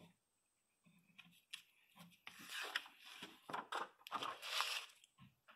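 Pages of a paper catalog being opened and turned by hand: faint paper rustling, in a longer stretch about halfway through and another near the end, with a few light taps.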